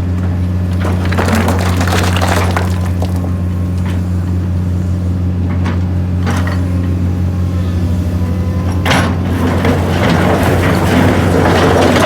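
Crane barge's engine running with a steady hum while split stone is dumped, rocks clattering and crashing against each other; the heaviest crashes come about nine seconds in and near the end.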